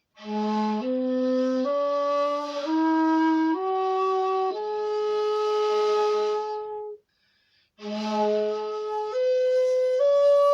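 Bamboo flute playing an ascending scale of single held notes, stepping up about six times to a long top note. After a short break, a second ascending run starts again from the low note.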